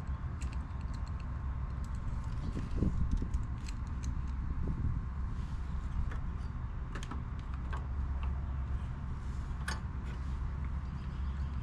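Scattered light metallic clicks and taps of hand tools and small bolts being handled while working on the 8 mm carburetor bolts of a lawnmower, over a steady low hum.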